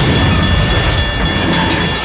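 Train passing: a loud, steady rush of noise, heavy in the low end.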